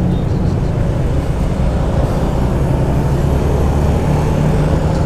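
Motorcycle engine running steadily while riding on the road, with wind and road noise.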